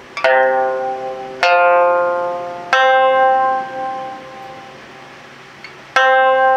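Python-skin sanshin plucked with a finger plectrum: four single notes, each left to ring and fade, with a pause of about three seconds before the last. The skin is stretched to the high-range 760 Hz tension (10-bu bari).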